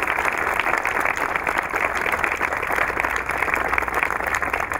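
A crowd applauding, many hands clapping together.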